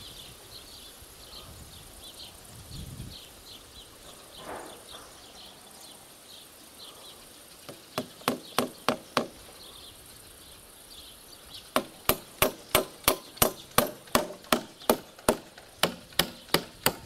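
Hammer driving nails into a wooden log post and beam. There is a short run of about six blows around eight seconds in, then a steady run of blows, about three a second, from about twelve seconds on.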